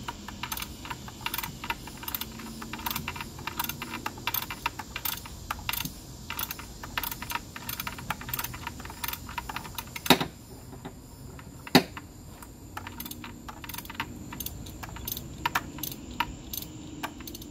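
Hand ratchet clicking in short runs as a stubborn, crud-covered spark plug is slowly backed out. The clicking is dense for the first half and sparser after, with two sharp metallic knocks about ten and twelve seconds in.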